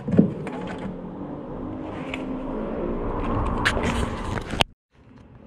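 Hands rummaging in the plastic under-seat storage compartment of a Kymco Xciting S 400 scooter, searching for its tool kit: scattered scrapes and clicks. Under them is a steady vehicle rumble that grows louder until the sound cuts off abruptly near the end.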